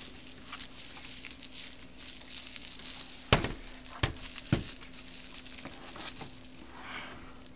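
Light crackling rustle of a laptop and its packaging being handled, with three sharp knocks a little after the middle, the laptop set down on the wooden desk.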